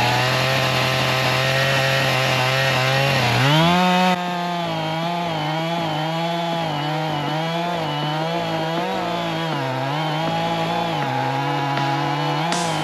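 Two-stroke chainsaw running at high speed, cutting into a felled trunk. The engine note climbs about three and a half seconds in, then keeps rising and dipping as the chain bites and frees in the wood.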